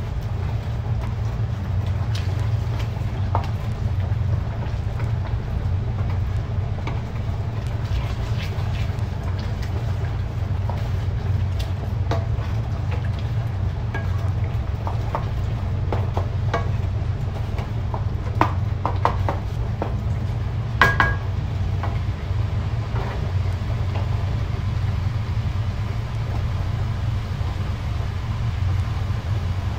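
Wooden spoon stirring thick ground-meat sauce in a metal pan, with scattered scrapes and taps against the pan and a louder knock about 21 seconds in, over a steady low hum.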